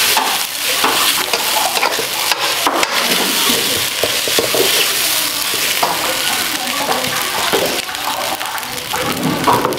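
Fried rice sizzling in a hot wok while a metal spatula stirs and scrapes through it, with frequent short clicks of the spatula against the pan.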